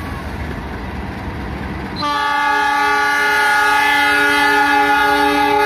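Passing train's low rumble, then about two seconds in a KAI CC 206 diesel-electric locomotive sounds its horn: one long, steady blast of several tones that starts sharply and keeps going.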